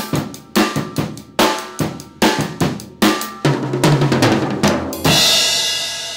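Acoustic drum kit played with sticks: a steady beat on bass drum and snare, a quicker fill on the drums about three and a half seconds in, then a crash cymbal hit about five seconds in that rings on and slowly fades.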